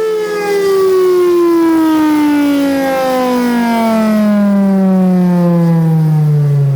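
Outdoor tornado warning siren, loud, its pitch falling steadily as it winds down.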